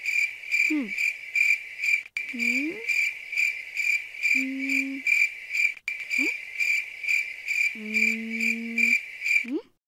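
Dubbed-in cricket chirping sound effect, a steady high chirp about two or three times a second, over a comic music cue of short sliding notes and a couple of held low notes. It is the stock gag for a puzzled, awkward silence. Both stop shortly before the end.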